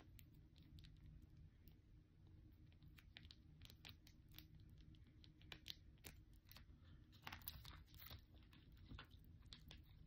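Faint crinkling and clicking of small plastic sauce packets being squeezed out by hand, over a low steady hum.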